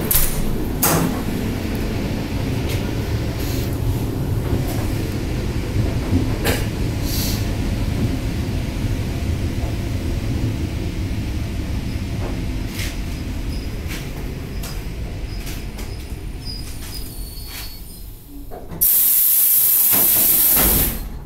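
ET2M electric train slowing into a station: a steady low running rumble with scattered clicks fades as it comes to a stop. About two seconds before the end, a loud two-second hiss of compressed air as the pneumatic doors open.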